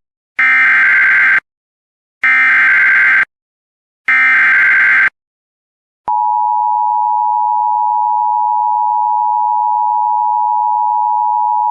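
Emergency Alert System SAME header: three identical bursts of warbling data tones, each about a second long with a second's gap between them, marking the start of a new alert. About six seconds in, the steady two-tone EAS attention signal begins and holds.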